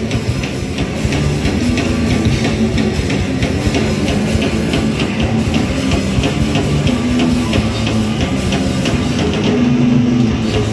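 A hardcore punk band playing live: distorted electric guitars over a fast, steady drum-kit beat with cymbal hits, an instrumental stretch without vocals.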